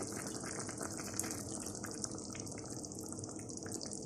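Chicken simmering in liquid in a pan on the stove: a steady hiss with dense little bubbling pops, which thin out about halfway through.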